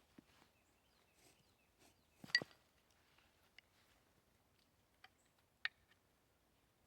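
A few sparse light clicks and knocks from the wooden bow drill parts and knife being handled: the loudest is a short clink about two seconds in, with a sharper click near six seconds.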